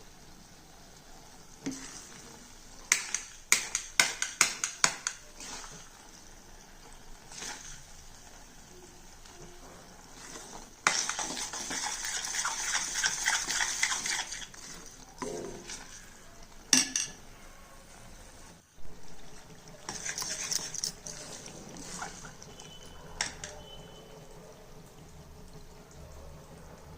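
A spoon knocking and scraping against a kadhai while thick barfi mixture is worked in it. There is a quick run of about ten sharp taps a few seconds in, then a long scrape around the middle and a shorter one later.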